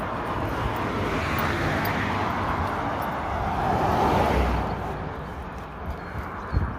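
A road vehicle passing by: tyre and engine noise building, peaking about four seconds in and dropping in pitch, then fading away.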